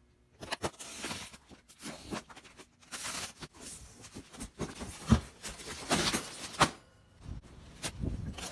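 Cardboard box being handled and opened: irregular rustling and scraping of the cardboard, with a few sharp knocks and clicks.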